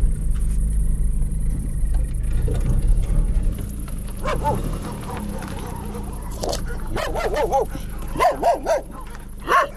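A dog barking in groups of short barks, starting about four seconds in, over the low steady rumble of a car's engine and road noise.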